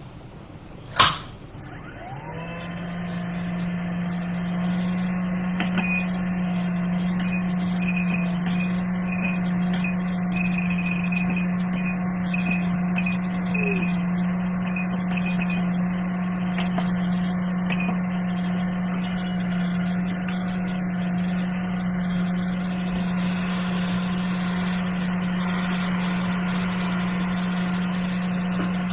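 A sharp click, then a hot air rework station's blower spins up about two seconds in and runs with a steady hum. It is blowing hot air to lift a chip off the logic board.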